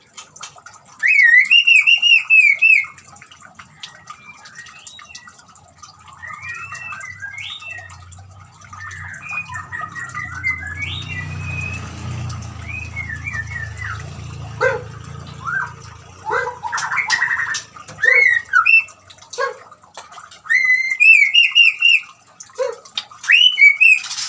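White-rumped shama (murai batu) singing a varied song of short, sliding whistled phrases, loudest near the start and again towards the end, over trickling water that is heard most in the middle.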